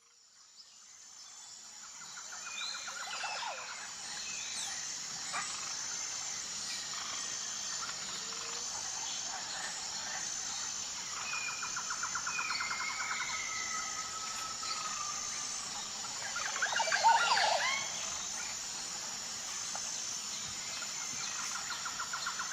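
Jungle ambience: a steady high-pitched drone with a regular pulse, with birds calling and trilling over it and a louder flurry of calls about seventeen seconds in. It fades in at the start.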